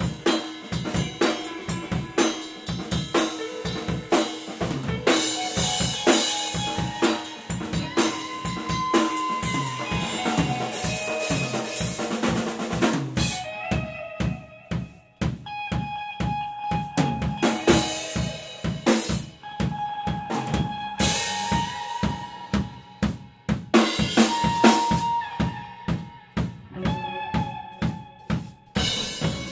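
Live drum kit and electric guitar improvising together: busy kick, snare and cymbal hits under held guitar notes, the playing thinning out briefly about halfway through before building again.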